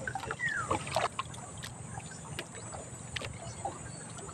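Gill net being pulled in by hand over the side of a wooden outrigger boat, water dripping off the mesh, with light knocks and ticks against the hull over low lapping water. A short falling whistled note sounds about half a second in.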